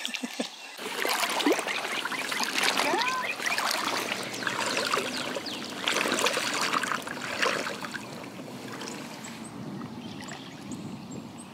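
Water sloshing and swishing around the legs of someone wading in chest waders. It starts about a second in, stays loud for several seconds, then eases off near the end.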